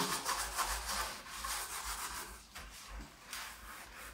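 Gloved hands rubbing foamy cleaner over a wet enamelled baking tray, a quick run of rubbing and swishing strokes that grows fainter toward the end.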